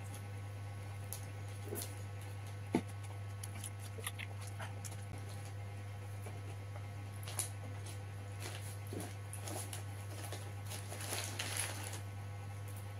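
Close-up eating sounds: a man chewing and smacking his lips while his fingers pick at rice and fish on a crackly paper wrapping, heard as scattered small clicks and wet smacks, the sharpest about three seconds in. A steady low hum runs underneath.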